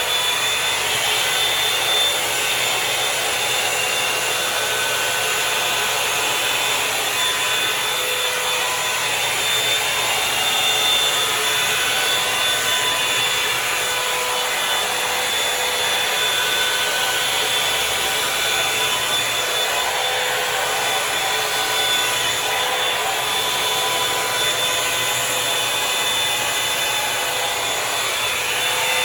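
Revlon One Step Volumizer hot-air brush running steadily: a rush of blown air with a high, steady motor whine.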